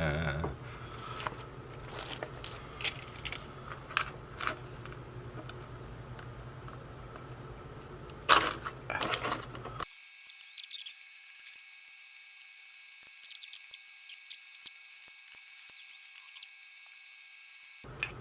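Sharp clicks and snaps of a plastic power bank case being pried apart with a tool, the loudest just after the middle. About halfway through the sound changes abruptly to a faint, steady high whine with scattered ticks.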